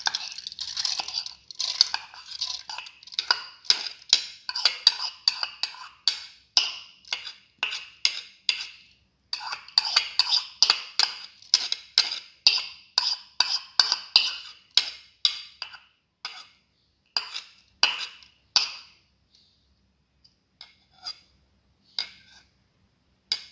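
Soaked red lentils being tipped into a stainless steel pressure cooker pot: a rapid patter of clicks and taps. The patter is dense for most of the time and thins to a few separate taps in the last several seconds.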